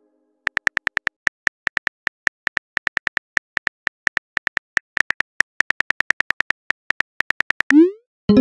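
Phone on-screen keyboard key clicks from a texting-story app: a rapid, irregular run of taps as a message is typed. Near the end a short rising swoosh, the message-sent sound.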